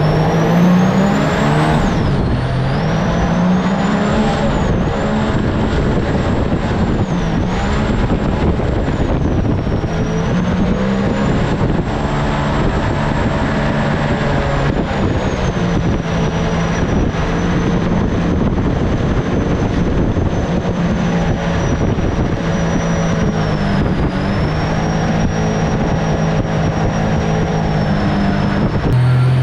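Mini jet boat's engine running under way, its pitch rising and falling a little with the throttle, with a thin high whine above it and a steady rush of noise.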